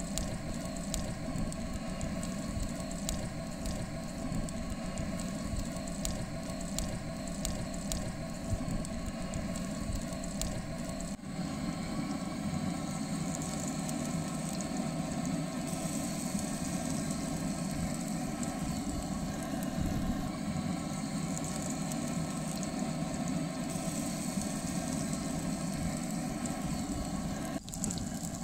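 Butter melting and foaming in a cast-iron skillet over a grill, sizzling with scattered crackling pops over a steady low rumble. The sound drops out briefly about eleven seconds in.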